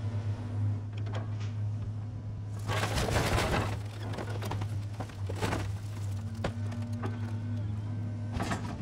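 A scrapyard material handler's engine runs with a steady hum as its grapple works flattened cars off a trailer. About three seconds in comes a loud burst of scraping, crunching sheet metal lasting around a second, followed by a few sharp metal clanks.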